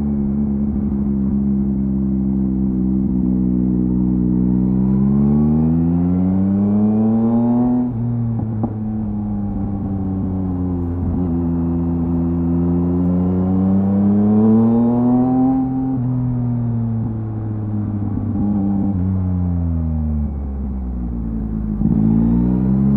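2023 Yamaha MT-09's inline three-cylinder engine through a LeoVince LV Race exhaust, pulling under acceleration with the pitch climbing. It drops suddenly about eight seconds in, climbs again, then falls away as the throttle eases before picking up once more near the end.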